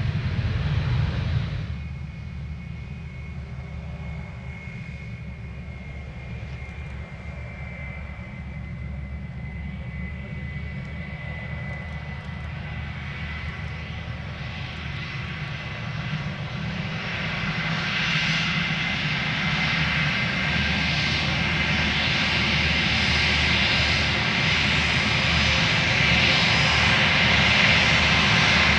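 Airbus A320's twin jet engines running at low power as it taxis, a steady rumble with a high whine. The sound is loud for the first second and a half, then drops suddenly, and it grows steadily louder and brighter over the last ten seconds as the airliner comes closer.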